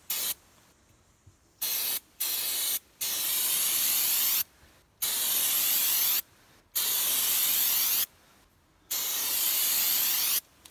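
Aerosol can of contact cleaner spraying in about seven hissing bursts, from short puffs to about a second and a half long, degreasing a steel rifle barrel.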